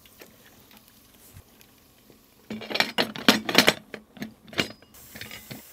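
Chicken frying in hot oil with a faint crackle. Then, from about two and a half seconds in, a quick run of loud metallic clanks and clatter as the stainless steel pressure-fryer lid is set on the pot and closed.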